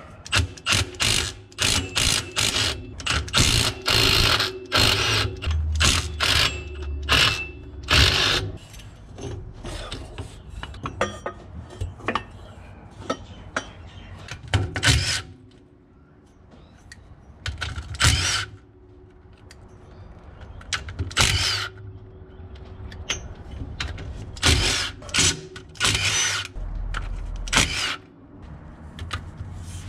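Cordless Milwaukee impact gun run in repeated short bursts to undo the bolts holding the driveshaft to the rear differential's pinion flange, and later the nuts holding the differential centre into the axle housing, with quieter pauses between bursts.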